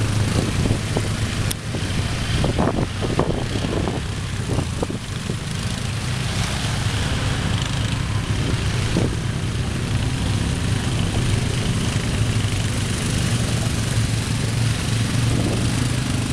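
Quad bike (ATV) engines running steadily as the machines wade through a shallow river, with water splashing and churning around the wheels, loudest as one passes close near the end.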